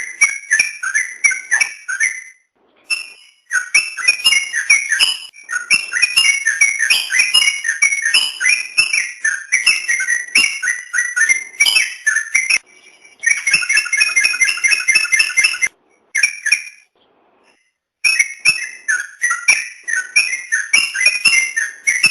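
Yellow-vented bulbul (trucukan) singing: quick runs of short, bubbly whistled notes, several a second, broken by brief pauses about 2 s in, about 13 s in and about 16 s in.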